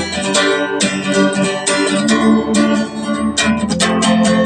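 Instrumental song intro of guitar strummed and plucked in quick, repeated strokes over sustained chords.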